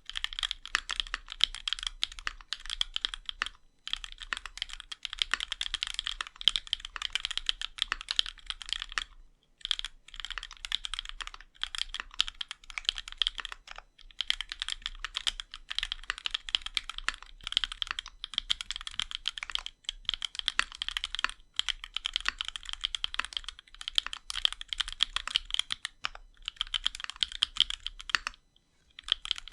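Continuous typing on a custom CannonKeys Onyx mechanical keyboard with a brass plate, RAMA Works Duck switches and GMK keycaps: a rapid stream of keystroke clacks. It breaks off briefly about 4, 9 and 14 seconds in and near the end.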